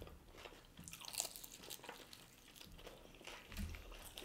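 Crunching and chewing of crispy-battered Korean fried chicken, with a sharper crunch about a second in.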